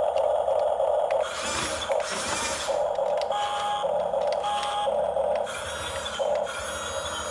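Huina 554 remote-control bulldozer's sound module playing its engine sound effect through a small toy speaker: a steady electronic buzz that breaks off twice, with two short beeps in the middle.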